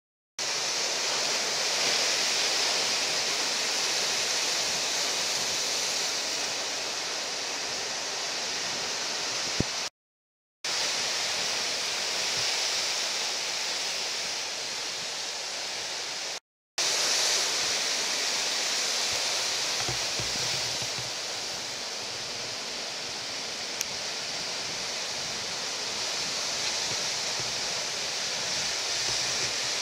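Steady rush of breaking ocean surf, dropping out to silence twice for a moment, about ten and sixteen seconds in.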